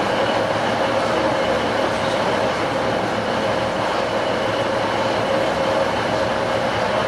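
Container freight train rolling slowly past, its wagons' wheels running on the rails, with a steady whine under the rolling noise.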